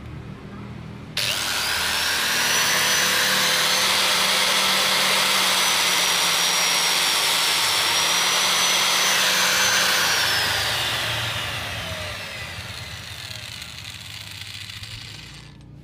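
Electric angle grinder with a sanding pad switched on about a second in, running at a steady high whine, then switched off and spinning down, its whine falling in pitch and fading over several seconds.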